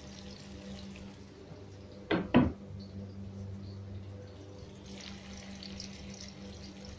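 Onion and garlic sizzling faintly in oil in a wok, with a low steady hum underneath. About two seconds in come two sharp knocks in quick succession, the loudest sounds here.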